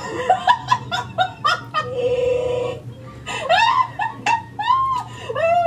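A woman laughing hard, ending in a run of short rising-and-falling peals about every half second.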